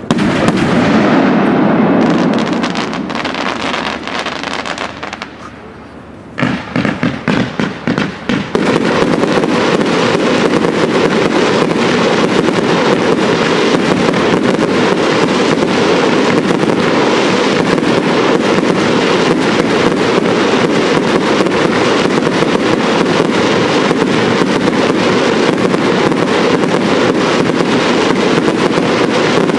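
Professional fireworks display: a shell burst bangs at the start and fades, then a quick run of separate bangs, and from about eight seconds in a dense, unbroken barrage of reports.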